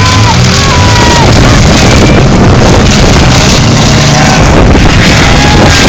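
Several six-cylinder demolition derby cars' engines running loud and revving as the cars drive and push against one another.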